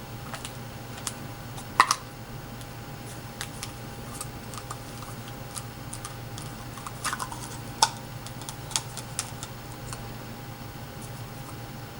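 Irregular light clicks and taps of small hard objects, like keys or plastic being handled, with a few louder knocks about two seconds in and near eight seconds, over a steady low hum.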